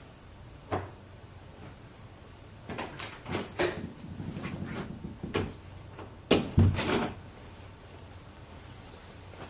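A series of sharp knocks and clunks, as of things being handled: a single knock about a second in, a quick cluster a little later, and the loudest pair of bangs with a low thud near the end of the activity.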